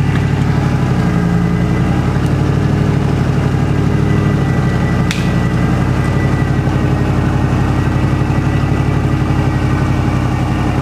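Off-road vehicle engine running steadily at low revs, with a thin, steady high whine over it.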